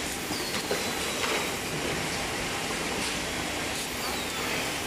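SWIFT SWT36120M automatic cable tie gun working over motor stator leads, giving several short sharp clicks as it feeds, tightens and cuts ties, over a steady hiss of factory machinery. Two faint falling whistles, one near the start and one near the end.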